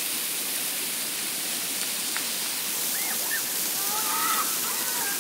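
Water jets of an automatic fountain spraying and splashing down all around, a steady hiss of falling water. Faint voices come through near the end.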